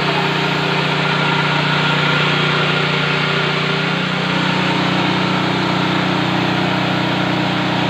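Portable mini rice mill (type 500 WG) running steadily during a milling test: an even machine drone with a noisy rushing hiss over it. The note changes slightly about four seconds in.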